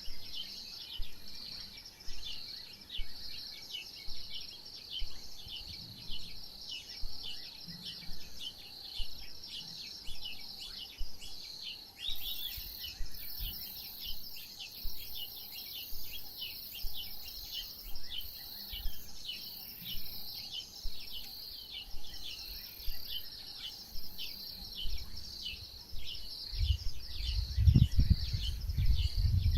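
A high chirping call repeated about once a second, over a steady high-pitched insect drone. Low rumbling thuds come in near the end.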